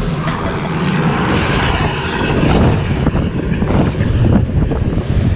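Helicopter engine and rotor noise from the open-door cabin, giving way within the first couple of seconds to wind rushing and buffeting over the GoPro's microphone as the laptop it is strapped to free-falls from about 1,000 feet.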